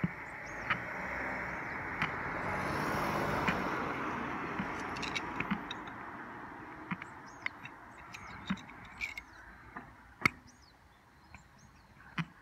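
A vehicle passing, its rushing noise swelling over the first few seconds and then fading away, with scattered short high bird chirps and a few sharp knocks.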